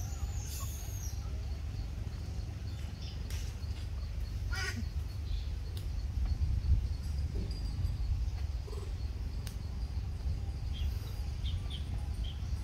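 Outdoor forest ambience: a steady low rumble with a few brief animal calls, the clearest about four and a half seconds in and some faint short chirps near the end.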